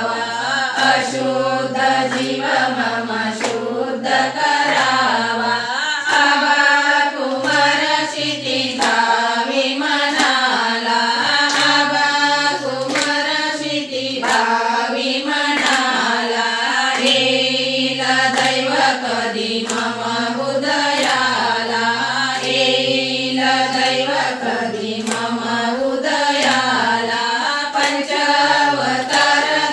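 A group of women singing a devotional song (bhajan) together, keeping time with steady hand-clapping.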